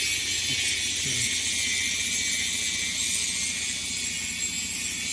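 Steady outdoor background noise: an even high-pitched hiss with a low steady hum beneath it, and no distinct event.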